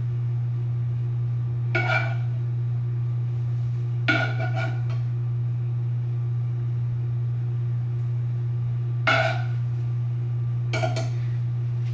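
A steady low hum, with a few short clattering sounds from handling food and dishes while burritos are assembled: one about two seconds in, one around four seconds, and two more near the end.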